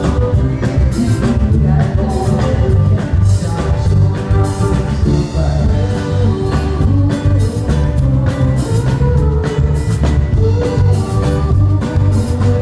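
A band playing rock music live, with a drum kit keeping a steady beat under guitar and heavy low notes.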